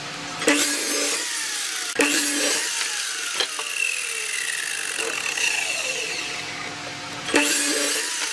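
Sliding compound miter saw cutting through a softwood board in three separate cuts, starting about half a second, two seconds and seven and a half seconds in. Between cuts the motor's whine falls steadily as the blade spins down.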